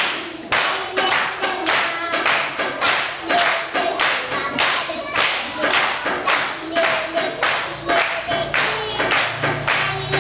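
Song with steady rhythmic hand clapping, about three claps a second, under singing voices.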